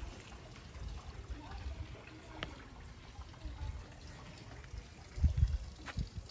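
Faint trickling water, with low rumbling throughout and a brief louder low rumble about five seconds in.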